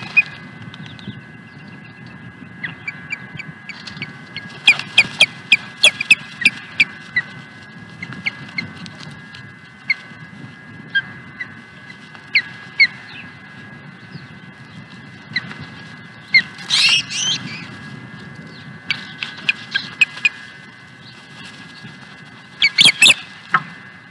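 Ospreys calling: bouts of short, sharp whistled chirps repeated several times a second, loudest in two bunches a little past the middle and near the end.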